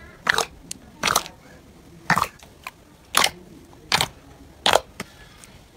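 Slime being pressed and poked by hand, giving short wet pops and squelches about once a second, six in all.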